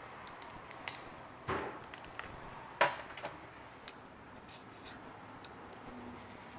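Shell of a whole steamed lobster cracking and snapping as a claw is twisted off, a few sharp cracks with the loudest about three seconds in.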